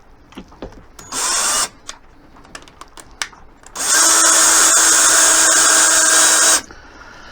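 Power drill driving a screw through a thin plywood piece: a short burst about a second in, a few small knocks, then a steady run of nearly three seconds that stops abruptly.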